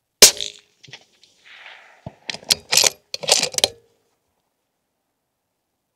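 A single shot from a suppressed precision rifle, a sharp crack with a short ringing tail, followed about two seconds later by the bolt being worked in a quick series of metallic clicks and rattles.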